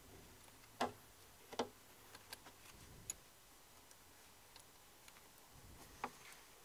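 A 10 mm wrench working the clamp nut on a car battery's positive terminal: a few faint, irregular metallic clicks, two stronger ones close together near the start and one more near the end.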